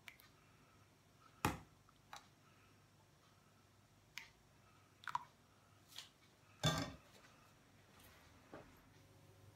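A few scattered clinks and knocks of a metal ladle against a ceramic soup bowl and a cast-iron pot as tomato soup is ladled out; one sharp knock about a second and a half in and a longer scrape-and-knock near the end are the loudest.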